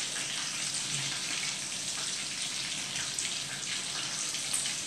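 Breaded, stuffed mussels deep-frying in hot oil in a wire fry basket: a steady sizzle with a few small crackles.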